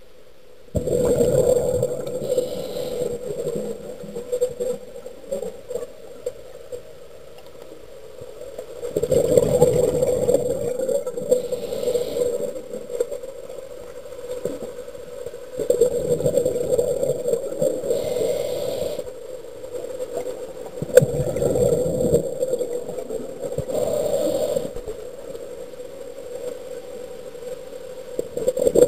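Muffled underwater rushing and rubbing noise picked up by an underwater camera as it moves through the water, rising in surges every five or six seconds and dropping to a steady hiss between them.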